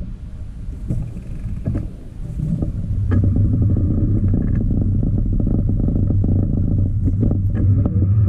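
Low rumble of a trike rolling along a wet asphalt path, heard through its mounted camera as road and wind noise, growing louder about three seconds in, with scattered knocks and clicks.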